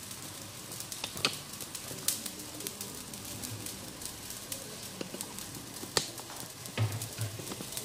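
Chicken pieces frying in a stainless steel pot: a steady sizzle with a few sharp pops of spitting fat, the loudest about a second in and about six seconds in.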